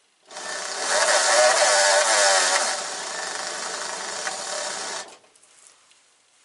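Electric hub motor in a moped's front wheel spinning up under a twist-grip throttle: a whine that wavers in pitch as the throttle is worked, then runs steadier and quieter, and cuts off about five seconds in. The motor, controller and battery are working.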